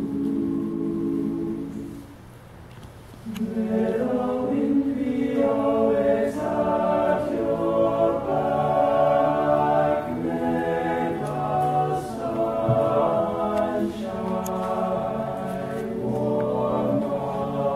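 All-male a cappella group singing in close harmony: a held chord, a short break about two seconds in, then fuller, louder singing.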